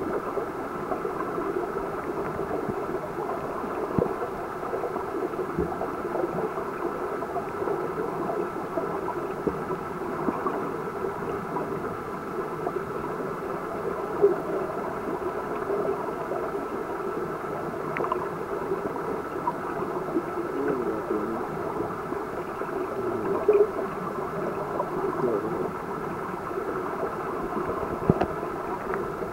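Muffled underwater ambience picked up by a submerged camera: a steady dull rush of water with a faint steady tone and a few soft knocks.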